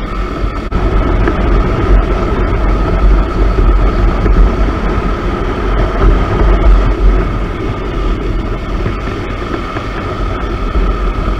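KTM RC 200 motorcycle's single-cylinder engine running at a steady cruising speed, under heavy wind rumble buffeting the microphone.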